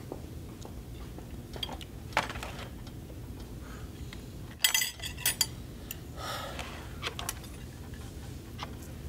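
Dishes and cutlery clattering on a cafeteria tray and table: a few scattered clicks, then a cluster of sharp clatters about halfway through, followed by a brief scrape. A low, steady room hum runs under it.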